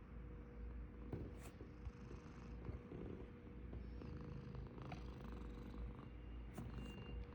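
British Shorthair cat snoring faintly in its sleep, a steady low rumble, with a few faint clicks.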